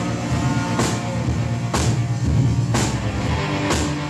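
Live band music, sustained and loud, with a sharp hit on the beat about once a second.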